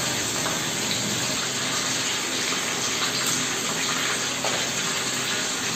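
Katla fish pieces frying in hot mustard oil in a kadai: a steady, dense sizzle.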